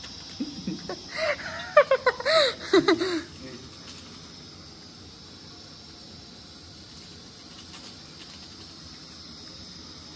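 A voice calls out briefly in the first three seconds, untranscribed, perhaps an exclamation or laugh. After that a steady high-pitched hiss of night insects runs on underneath.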